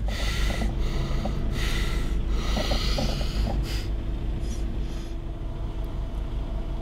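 Three long, heavy breaths in the first few seconds, over the low, steady hum of a car engine idling.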